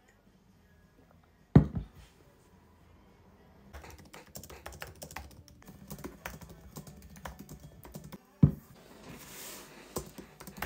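Fast typing on a slim computer keyboard: rapid, soft key clicks that come in runs. Two sharp knocks on the desk, one about a second and a half in, as a ceramic mug is set down, and another about eight and a half seconds in.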